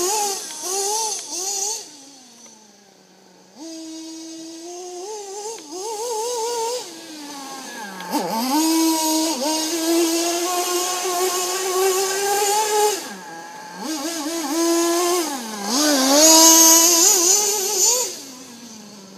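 HSP Camper nitro RC buggy's small two-stroke glow engine, buzzing high and revving up and down over and over as the throttle is worked. It drops to a quieter near idle between about two and four seconds in, and is loudest near the end.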